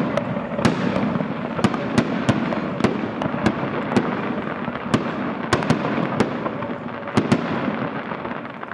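Aerial fireworks display: a rapid run of shell bursts, sharp bangs about two a second over a continuous rumble and crackle from overlapping explosions.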